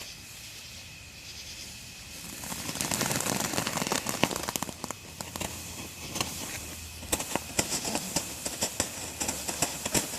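Consumer firework going off: a hiss builds about two seconds in, followed by a long run of sharp crackles and small pops.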